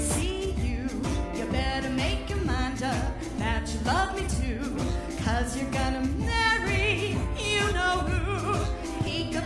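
Live music: a singing voice with wavering vibrato over instrumental accompaniment with a steady beat.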